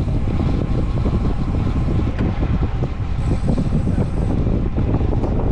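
Wind rushing over the camera microphone of a road cyclist riding at about 35 km/h, a steady low buffeting rush.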